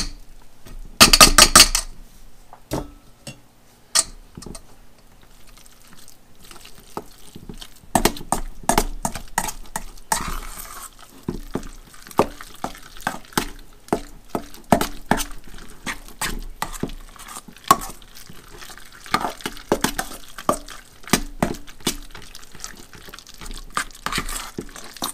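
Metal spoon stirring crushed pineapple into soft cream cheese in a stainless steel mixing bowl, clinking and scraping against the bowl's sides in an irregular run of knocks. About a second in, a brief loud rattle as the mesh strainer is knocked against the bowl.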